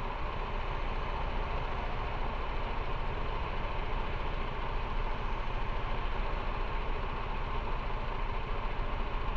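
Motorcycle engine running steadily, its revs holding even with no rises or falls.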